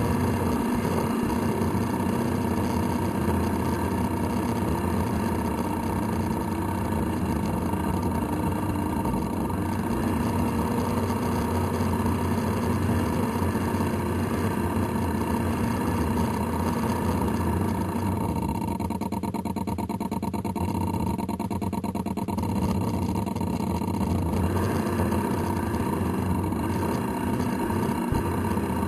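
Radio-controlled model boat motor running steadily, with an even hum whose upper part thins out for a few seconds a little past halfway.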